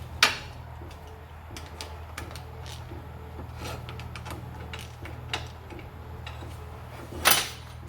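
Small clicks and knocks of metal pieces and tools being handled on a workbench, with two louder sharp knocks, one just after the start and one near the end, over a steady low hum.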